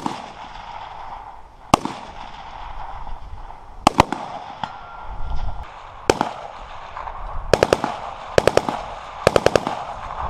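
Rifle gunfire on a shooting range: a few single shots spaced one to two seconds apart, then three quick bursts of several rounds each in the last few seconds.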